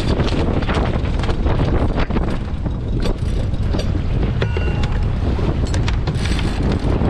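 Strong wind buffeting the microphone over the rush and slap of choppy water along the hull of a Contessa 26 sailboat heeled and sailing fast. A brief squeak comes about halfway through.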